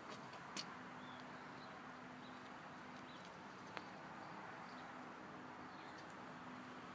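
Quiet outdoor background hiss with a faint on-and-off low hum, a few faint bird chirps, and two light clicks, one just after the start and one near the middle.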